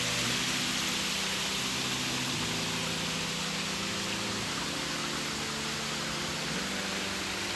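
A steady rushing noise, like running water or wind, under soft background music of sustained chords that change about every two seconds.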